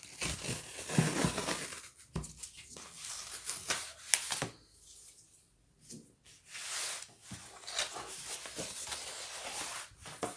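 Cardboard book mailer being torn open and handled: bursts of tearing and scraping cardboard with a few sharp snaps, a short lull around the middle, then more scraping as the book slides out of the sleeve.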